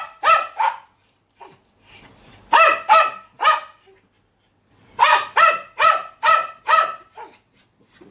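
Dachshunds barking sharply in three quick volleys, a couple of barks, then three, then about six in a row, the agitated barking of dogs angry at a vacuum cleaner.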